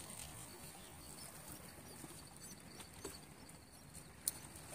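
Faint background hiss broken by a few small clicks, with one sharp click about four seconds in.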